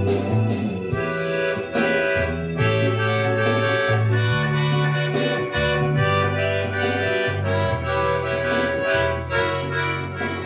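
Solo accordion playing: held bass notes shift step by step about once a second under sustained chords and a moving melody.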